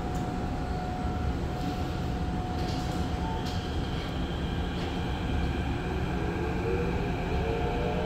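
Inside an SMRT CT251 metro train: a steady rumble and hum, then about five seconds in the traction motors' whine starts rising in pitch as the train accelerates.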